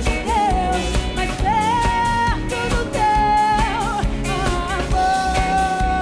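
A woman singing a gospel song with instrumental accompaniment: long held notes with vibrato, linked by quick melismatic runs.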